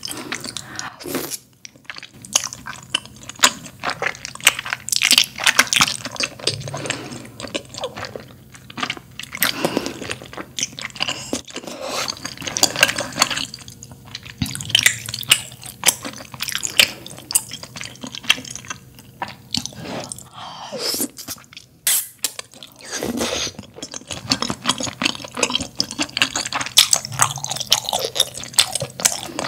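Mouth sounds of eating malatang: slurping and chewing soft, slippery wide glass noodles in spicy broth, with wet squishing, in irregular bursts.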